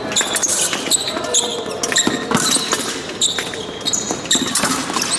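Fencers' footwork during an épée bout: shoes squeaking and stepping on the fencing piste, with many short sharp clicks and brief high squeaks throughout.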